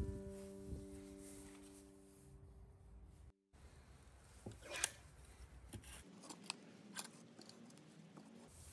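A held music chord rings out and fades away. After a short break, faint scattered clicks and small handling sounds follow, one sharper click among them.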